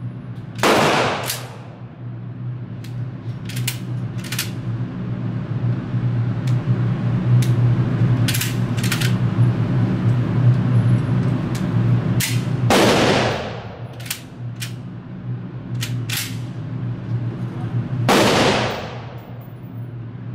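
Three gunshots echo in an indoor shooting range, each a sharp loud report with a long reverberant tail: one about a second in, one past the middle and one near the end. Several short sharp clicks fall between them, over a steady low hum.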